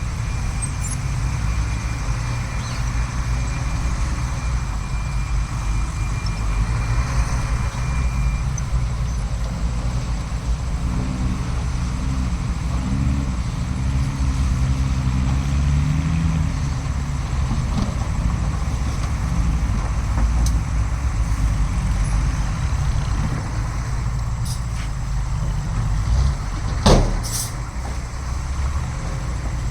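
Heavy diesel earthmoving machinery running steadily, with the engine pitch wavering up and down in the middle as it works, and one short, sharp burst of sound near the end.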